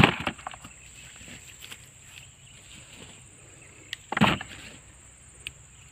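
Handling knocks as dug sweet potatoes are turned over in the hand: a sharp knock with a few quick clicks at the start and a duller thump about four seconds in. A steady high-pitched insect drone runs behind.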